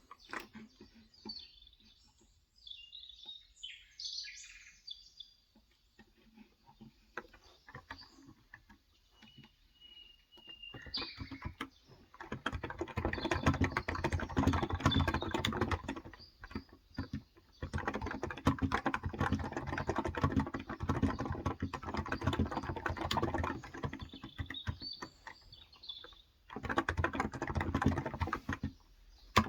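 Birds chirping outside for the first ten seconds or so, then fast continuous typing on a Cox Endeavor electro-capacitive tenkeyless keyboard with 35 g switches. The typing stops briefly twice, and a bird chirps again near the end.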